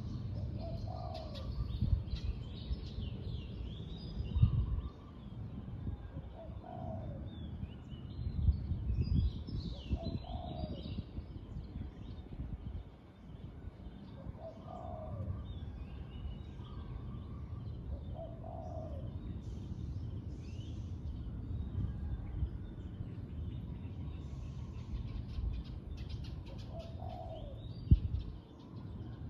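Spotted doves cooing, a short coo every few seconds, with small birds chirping higher above. A low rumble runs underneath, and a sharp thump comes near the end.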